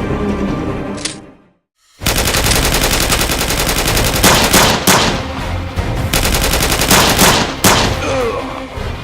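Automatic gunfire sound effects: a long rapid burst of machine-gun fire with several louder single shots among it, starting after the sound drops out to silence for about half a second, under a music track.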